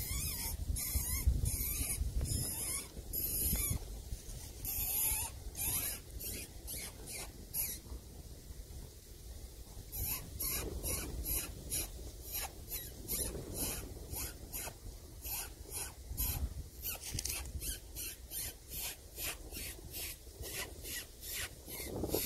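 Fox whistle blown in a long series of short, shrill squeaks imitating a rabbit in distress, used to call foxes in. The squeaks come in bursts at first, pause for about two seconds, then run on steadily at about three a second.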